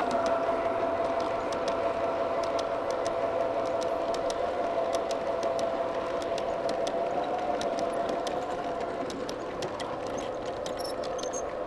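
G-scale model freight train rolling past on garden track, its car wheels clicking over the rail joints over a steady running hum. A held hum tone in the train's sound fades out about nine seconds in, and the whole sound slowly grows fainter.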